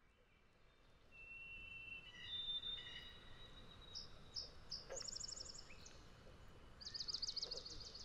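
Songbirds singing at a pond, fading in from near silence: clear whistled notes, then a rapid high trill about five seconds in and a longer trill near the end, over a faint low rumble.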